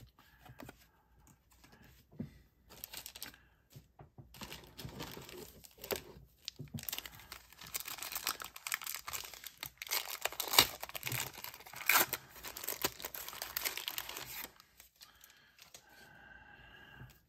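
A 1991 Pro Set football card pack's wrapper being torn open and crinkled by hand, a dense crackling and rustling that starts a couple of seconds in and stops a few seconds before the end.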